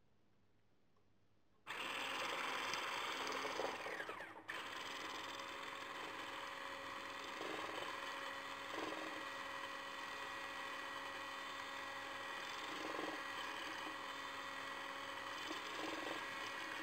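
Electric mixer with a balloon whisk attachment running at high speed, beating eggs and sugar for cake batter, a steady motor hum. It starts about a second and a half in, after a moment of silence, and eases slightly in level about four and a half seconds in.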